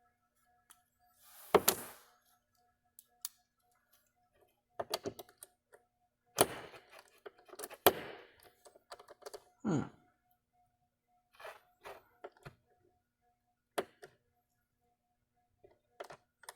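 A small screwdriver working a tiny, tight screw out of a plastic wall-plug charger case: scattered clicks and knocks of the tool and plastic housing being handled, with a brief falling squeak about ten seconds in.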